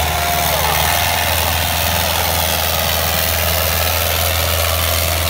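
Preet 6049 tractor's four-cylinder diesel engine running steadily under heavy load, a constant low drone, as it drags a 12×12 disc harrow through ploughed soil.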